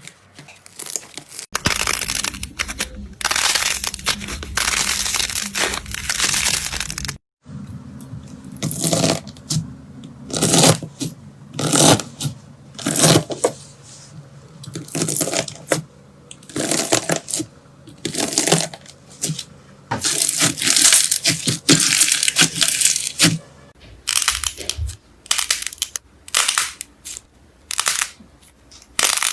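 Slime being squeezed and pressed by hand, a run of continuous crackling followed by repeated short crackly squelches about once a second.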